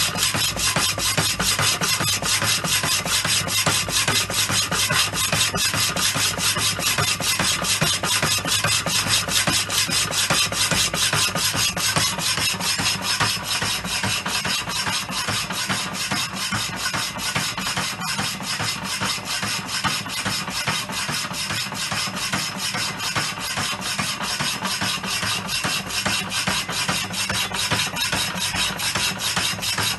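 Rapidor vintage power hacksaw sawing through steel plate: the blade rasps back and forth in the cut in a steady, even rhythm, with a steady low hum underneath.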